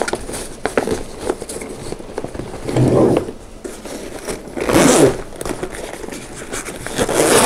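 Zipper on a fabric doll travel case being pulled closed around its edge, in three separate zips about two seconds apart, with small ticks of handling before the first.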